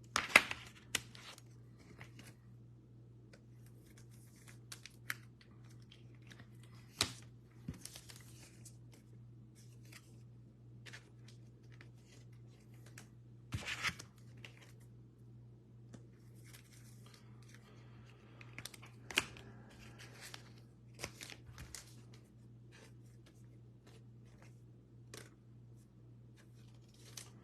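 Trading-card packs and a cardboard blaster box being handled and torn open: scattered crinkles, rips and taps, the loudest near the start and at about 7, 14 and 19 seconds. A steady low electrical hum runs underneath.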